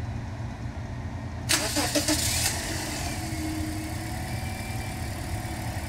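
2012 Toyota Corolla's four-cylinder engine cranked by the starter and catching about a second and a half in, then settling into a smooth idle, its misfire cured by a new ignition coil and spark plugs.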